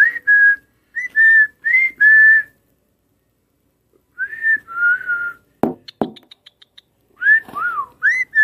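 Small pet parrot whistling: short, clear notes that slide up and down, in little groups with pauses between. A few sharp clicks come a little past halfway.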